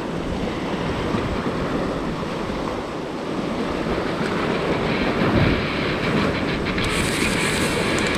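Ocean surf washing and churning against the rock ledge below, with wind on the microphone. From about halfway through, a fast, even run of clicks joins in: a spinning reel being wound to work the jig.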